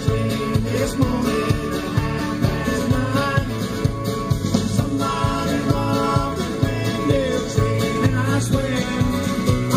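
Live band music: a country or bluegrass-style song with guitar, a steady beat and singing.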